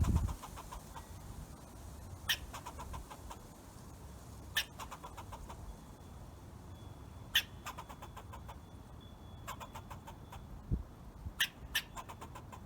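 Squirrel calling: short sharp chips every two or three seconds, each trailed by a quick rattle of fainter clicks, with three calls in fast succession near the end.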